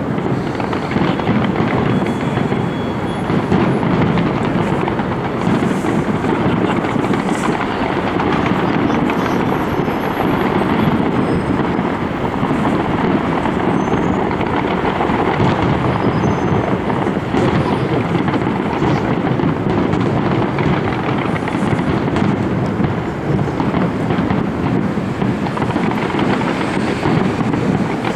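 Fireworks going off at a distance, a dense steady wash in which the separate bangs and crackles run together.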